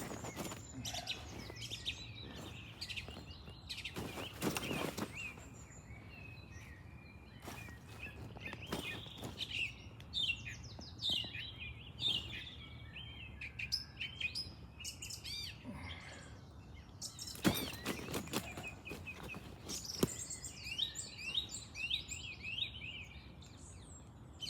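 Birds chirping and calling busily all through, many short calls overlapping. Brief knocks or rustles come about four seconds in and again around seventeen to eighteen seconds.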